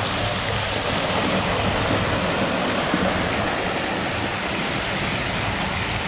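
Small waterfall pouring steadily and splashing into a shallow pool.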